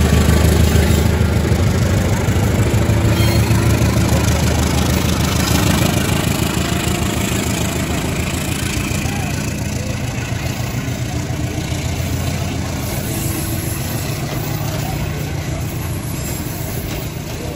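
GE CC203 diesel-electric locomotive running with a steady low engine drone as it pulls its passenger coaches past. The drone gradually fades as the locomotive moves away and the coaches roll by.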